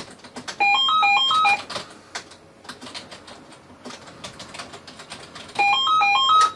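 Desk telephone's electronic ringer sounding twice, each ring a second-long trill of tones stepping up and down, the rings about five seconds apart. Computer keyboard typing clicks in between.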